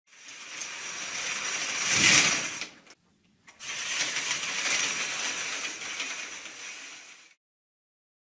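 Stage curtain sound effect: theatre curtains sliding shut, building to a peak just before they meet at about two seconds, then after a short pause sliding open again for about four seconds, fading toward the end.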